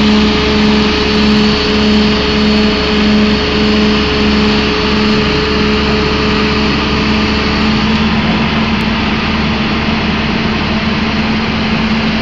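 Volvo excavator's diesel engine running under load as its hydraulics lift a band drain drilling mast upright, with a low pulsing hum about one and a half times a second that stops about eight seconds in, leaving a steady drone.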